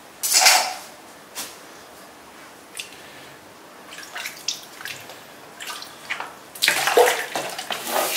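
Tap water running into a stainless steel sink and over a plastic cutting board as the board is rinsed, starting loudly about six and a half seconds in. Before it there is a short loud rush about half a second in and a few light knocks as the board and knife are handled.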